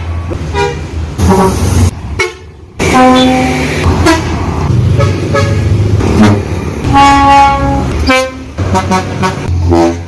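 Bus horns sounding in a run of short toots and longer blasts, each a loud steady chord of tones, over a low engine rumble. There is a brief break in the middle.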